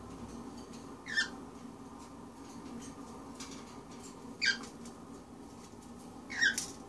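Pet bird giving three short, high chirps, each falling in pitch, about a second, four and a half seconds and six and a half seconds in.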